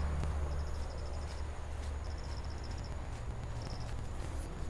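Insects trilling in the grass, three trains of rapid even pulses about a second apart, the last one short, over a low steady rumble that eases after the first second or so.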